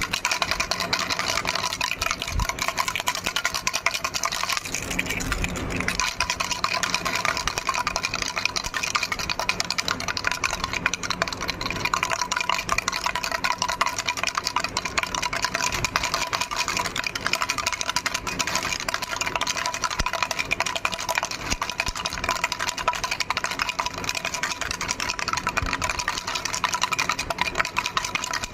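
Baby rattle shaken without pause, a fast, dense clatter that keeps going steadily.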